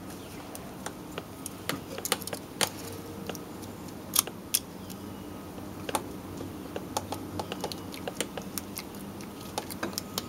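Snap-ring pliers and a steel snap ring clicking and scraping against the clutch pulley and nose of a Delphi V5 AC compressor as the ring is worked into its groove: scattered sharp metal clicks, the loudest about four seconds in.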